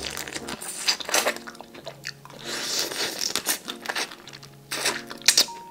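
Crunchy food being bitten and chewed close to the microphone, a scatter of short crisp crackles, over soft background music.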